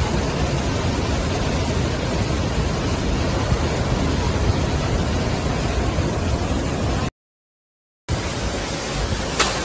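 Floodwater rushing through the open gates of a dam spillway: a steady heavy rush that cuts off after about seven seconds. After a second of silence, a lighter steady rush of storm wind and rain follows, with a sharp click near the end.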